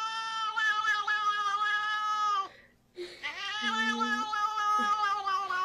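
A cat giving weird, long drawn-out meows: one call of about two and a half seconds, then after a short break a second long call that carries on to the end.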